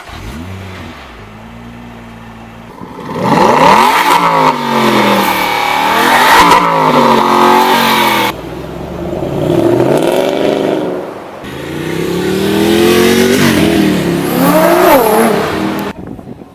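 Lamborghini Gallardo Spyder's V10 idling, then accelerating hard three times, loud, each pull rising in pitch and stepping down at gear shifts. The last pull cuts off suddenly near the end.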